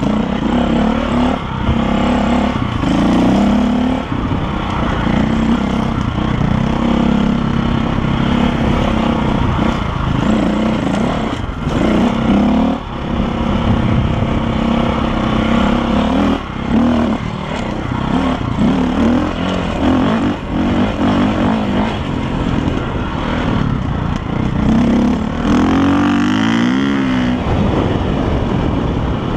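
KTM dirt bike engine running on a dirt trail ride, its pitch rising and falling as the throttle opens and closes, with a sharp rev and drop near the end.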